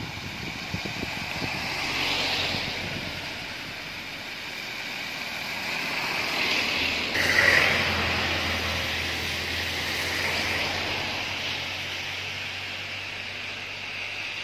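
Vehicles passing on a rain-wet road: tyre hiss swells and fades about three times, loudest about seven seconds in, over a low steady hum.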